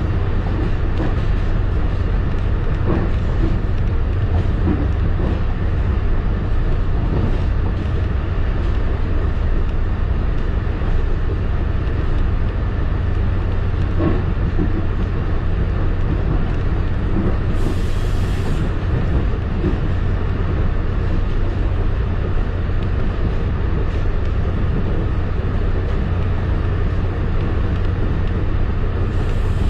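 Commuter rail passenger coach running along the track, heard from inside the car: a steady low rumble of wheels on rail with a few faint knocks.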